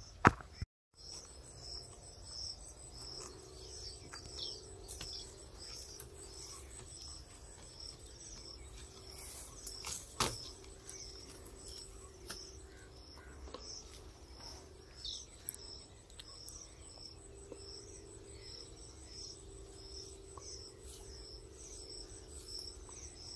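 Insects chirping in a rural field: a high chirp repeating at an even pace over a steady high-pitched tone. A sharp click sounds just after the start and another knock about ten seconds in, with a faint low drone coming and going underneath.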